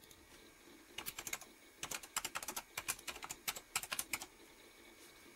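Typing on a computer keyboard: a quick, irregular run of key clicks starting about a second in and stopping a little after four seconds.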